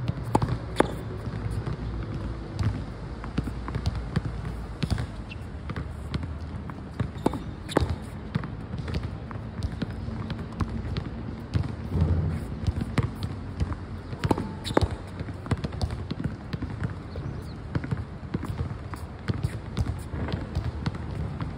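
Tennis ball struck by a racket against a concrete practice wall: irregular sharp pops of the strings, the ball hitting the wall and bouncing on the hard court.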